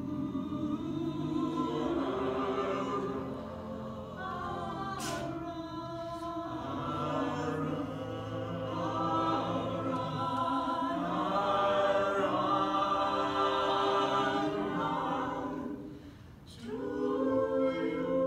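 Six-voice a cappella ensemble (bass, baritone, tenor, alto and two sopranos) singing in close harmony, with a brief break about sixteen seconds in before the voices come back in together.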